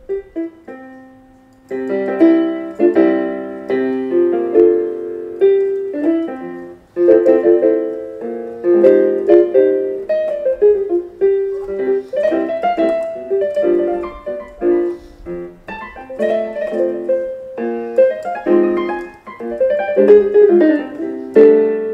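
Casio Casiotone LK-S250 61-key portable keyboard being played with both hands. A few single notes sound at the start, then after a short pause come steady chords under a moving melody.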